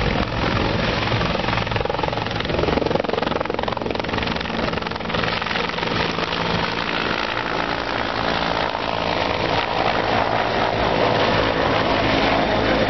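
Bell CH-146 Griffon helicopters flying low past, their rotors and turbine engines making a steady, loud hum.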